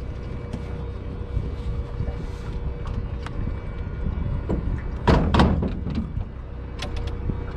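Scattered light clicks and a loud double knock about five seconds in, over a steady low rumble with a faint steady hum.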